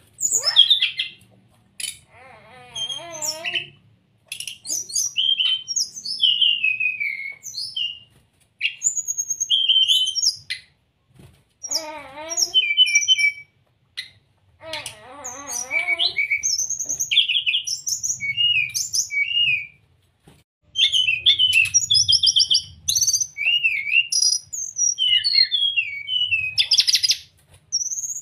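Brown-chested jungle flycatcher singing: a string of short, varied high whistled phrases with short pauses between them. Lower, wavering warbled notes come in three times.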